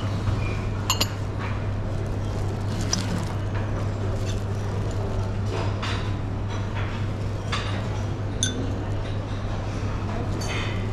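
Porcelain lids and small serving dishes clinking now and then as lids are lifted and set down and food is picked up with tongs. A steady low hum and room noise run underneath.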